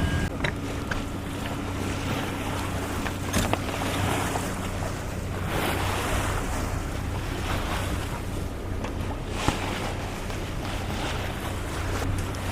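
Water rushing along a sailboat's hull, swelling and easing every few seconds, with wind buffeting the microphone and a low steady hum of the boat's engine underneath. A few sharp knocks come through, one about three seconds in and one near the end.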